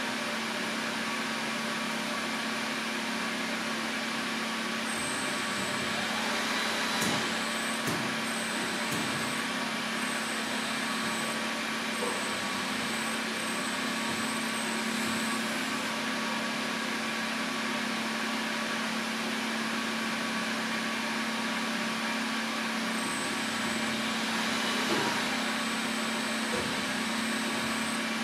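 Mondolfo Ferro Aquila Tornado automatic tyre changer running with a steady mechanical hum as the wheel turns under its bead tools, with a few faint clicks.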